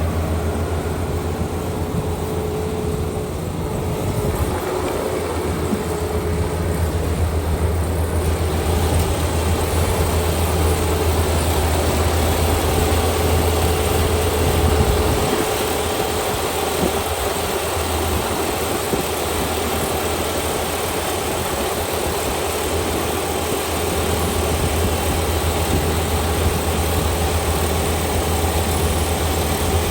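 Kubota ER572 combine harvester's diesel engine running steadily under way, with a deep, even hum. About eight seconds in, a broader rushing noise from the machine fills in and holds.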